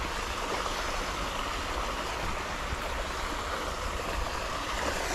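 Steady rush of flowing water, an even hiss with no distinct events.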